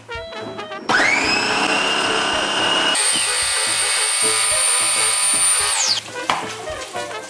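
KitchenAid Cook Processor's motor spinning the multi-blade knife on pulse to chop garlic cloves. It spins up with a rising whine about a second in, steps up to a higher pitch about three seconds in, and winds down about six seconds in.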